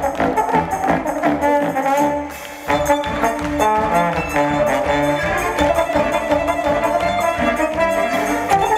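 A trombone playing a melody over a string orchestra. The music briefly drops away a little over two seconds in, then resumes.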